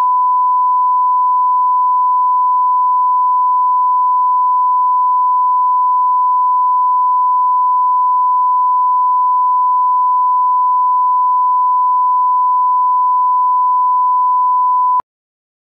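The 1 kHz reference test tone that goes with broadcast colour bars: one steady, unwavering beep at a single pitch, loud, cutting off suddenly near the end.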